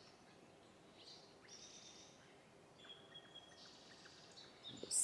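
Faint bird chirps over quiet room tone.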